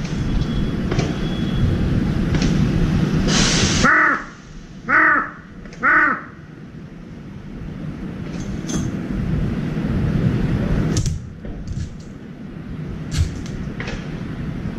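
Large-billed crow giving three loud caws about a second apart, a few seconds in, each call rising and falling in pitch. A steady low background rumble runs underneath.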